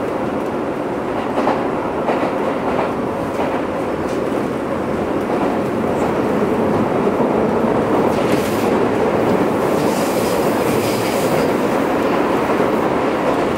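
Keio 8000 series electric commuter train running, heard from inside the car above its Hitachi GTO-VVVF inverter: a steady wheel-and-rail rumble with clickety-clack. A faint high hiss rises for a few seconds past the middle.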